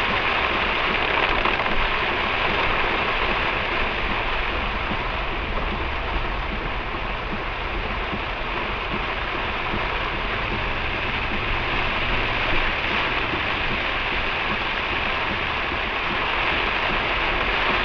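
Heavy downpour on a moving car, with tyre spray off the soaked road, heard from inside the car as a steady rushing noise.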